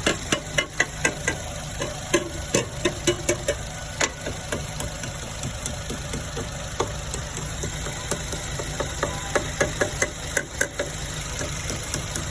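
Repeated sharp taps of a small tapper on the engine computer, coming in irregular runs of several a second, over the steady running of a 2013 Nissan Rogue's 2.5 four-cylinder engine with a misfire on cylinder four. The tapping is a check for an intermittent fault in the ECM's coil driver for cylinder four.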